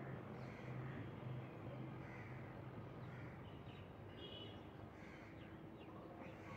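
Crows cawing faintly and repeatedly, about once a second, over a steady low hum.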